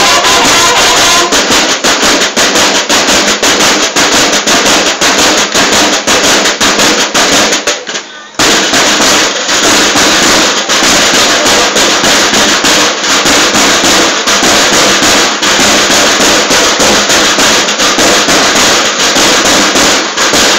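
Banda de guerra snare drums playing a fast marching cadence, loud and dense, with a brief break about eight seconds in.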